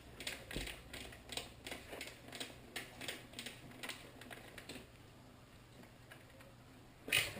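Light metallic clicks and ticks, about two or three a second, as a bicycle crank is worked loose and pulled off its BB30 bottom bracket, then a single louder knock near the end.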